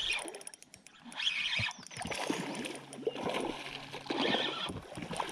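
Water splashing in several short bursts as a hooked smallmouth bass thrashes at the surface while it is reeled to the boat. A steady low hum runs through the middle couple of seconds.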